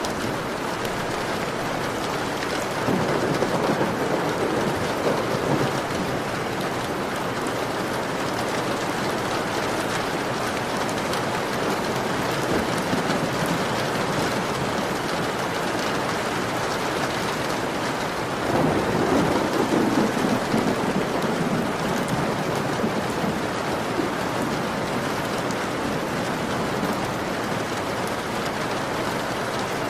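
Heavy rain beating steadily on a window, with two low rumbles of thunder, one a few seconds in and another just past the middle.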